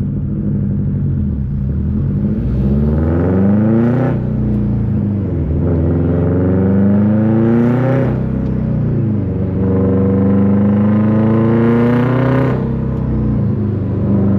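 2005 Subaru Impreza WRX STI's turbocharged flat-four through a Tomei Expreme Ti titanium exhaust with a catless downpipe, accelerating hard from a stop. The engine pitch climbs through three gears, with upshifts about four and eight seconds in, then eases off near the end.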